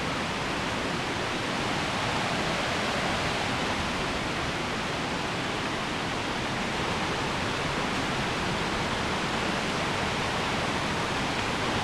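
Steady rushing of fast-flowing river water, an even hiss with no breaks.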